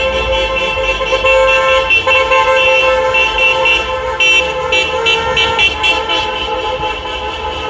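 Many car horns honking at once in celebration: several held long, overlapping, while others toot in quick short repeats from about four seconds in.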